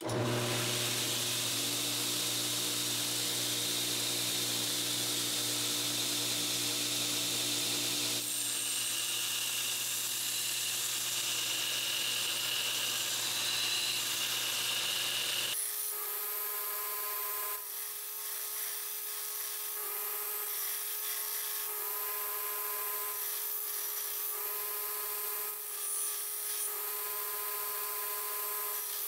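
Belt grinder running, its abrasive belt grinding the bevel of a 5160 steel knife blade held in a bevel jig: a steady motor hum under a grinding hiss, starting abruptly. In the later part the sound rises briefly about every two seconds as the blade is worked along the belt.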